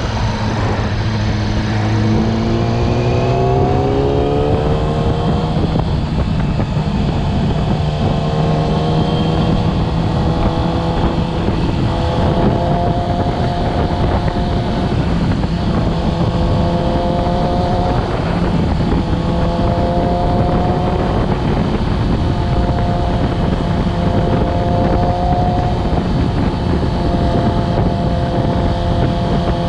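2020 Yamaha YZF-R6's inline-four engine revving up over the first few seconds and then held at steady high revs, wavering slightly. It is held in the range above 5000 rpm, where the owner reports an abnormal noise.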